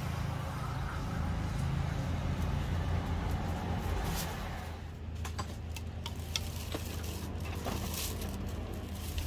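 Street ambience: a low traffic rumble that swells and then fades about five seconds in, followed by scattered light clicks and knocks.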